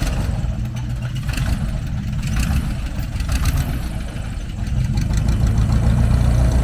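Airboat's engine and large caged propeller running as the boat pulls away from the ramp, growing louder about five seconds in; it pushes hard.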